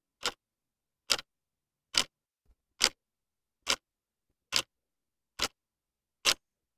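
Steady ticking: eight sharp, evenly spaced ticks, a little under a second apart, with silence between them.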